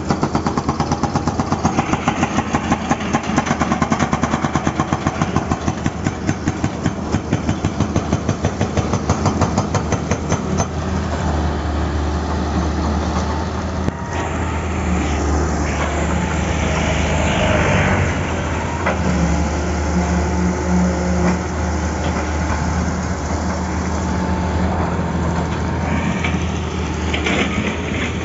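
Excavator-mounted hydraulic breaker hammering asphalt in rapid, even blows over the diesel engine. About ten seconds in the hammering stops and the excavator's engine runs on, steady and louder.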